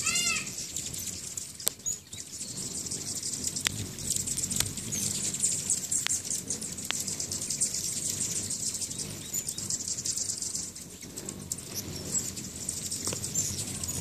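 Hummingbirds' wings whirring and fluttering as several birds fly around nectar feeders, with faint high chirping and a few sharp ticks.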